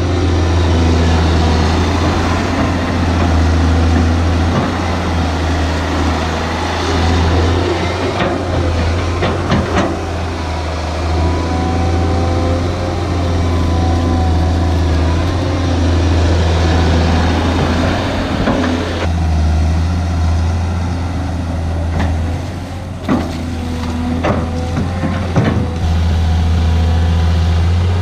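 Large hydraulic excavator's diesel engine running loudly under working load, its note swelling and easing as the machine digs. A few sharp knocks come about nine seconds in and again a few seconds before the end.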